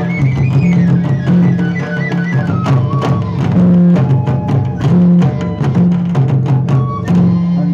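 Live Jharkhandi folk music for a jhumar dance: large drums beating a steady rhythm while a wind instrument plays a gliding melody over them.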